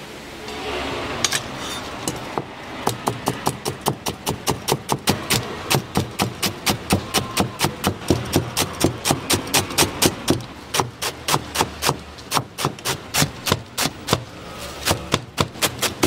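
Chinese cleaver chopping green onions against a cutting board: quick, even strokes about three a second, starting about a second in, with a couple of short pauses.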